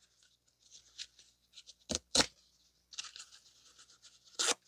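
Scratchy rustling and scraping of a cut-open oil filter's pleated paper media being handled, with sharp clicks: two close together about two seconds in and one near the end.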